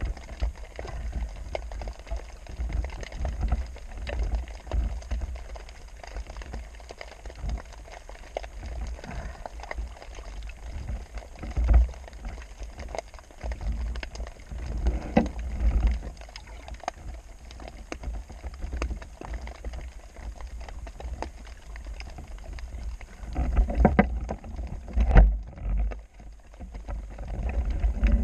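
Water moving around the microphone: a steady low rumble and sloshing, with scattered clicks and knocks and a few louder surges near the end.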